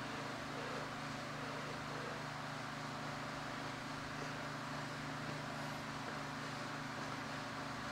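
A steady low mechanical hum with no change in level, the running sound of a machine or fan in a workshop.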